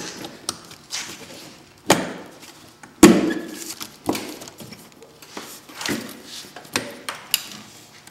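Several sharp knocks and thuds as a snowmobile's clutch shield and side panel are worked into place by hand. There are about six separate knocks, the loudest about three seconds in.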